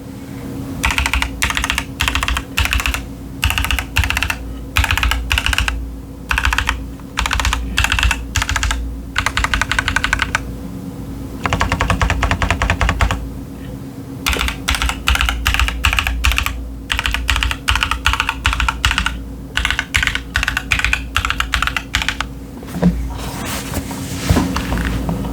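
Typing on a Keychron Q10 mechanical keyboard with TTC Chaotic Panda tactile switches and doubleshot ABS Cherry-profile keycaps. Keystrokes come in quick runs of a second or two, separated by short pauses.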